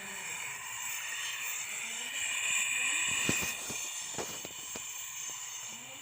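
Gas brazing torch hissing steadily while refrigerator tubing is welded, swelling slightly about halfway through. A few sharp metal knocks come just after the middle.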